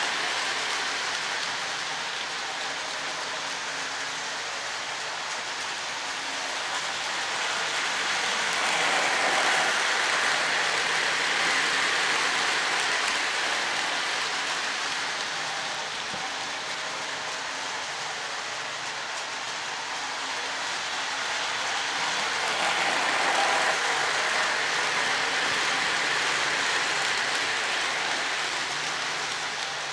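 Lionel O-gauge model train, a GE U36C diesel hauling coal hoppers and a caboose, running on three-rail track: a steady rushing clatter of wheels on rails, swelling and fading twice as the train circles past close by.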